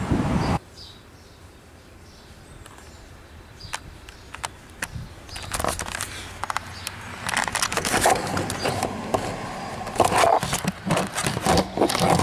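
A brief loud rush of noise that cuts off abruptly, then quiet. From about halfway in come scattered clicks, knocks and rustling, growing busier toward the end, as things are moved and handled on the bare floor of a minivan.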